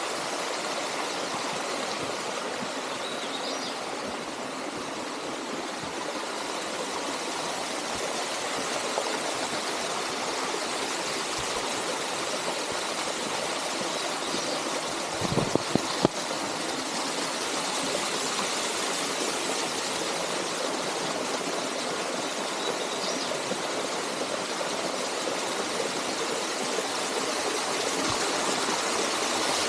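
Small waterfall spilling over a rock ledge into a shallow pool: a steady, even rush of falling and splashing water. A few sharp knocks come in a quick cluster about halfway through.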